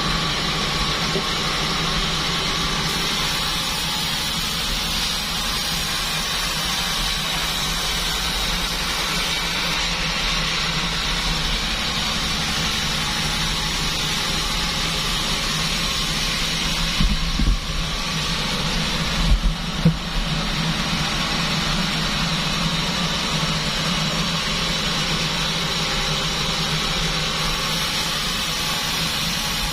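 Band sawmill running steadily, with a few short, loud knocks a little past halfway through.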